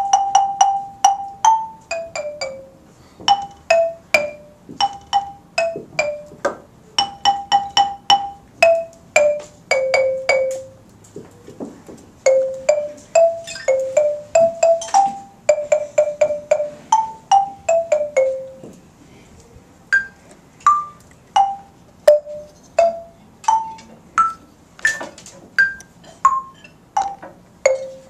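Children's short melodies played one note at a time on Orff classroom barred instruments struck with mallets, each note ringing briefly; about two or three notes a second, with short pauses between phrases.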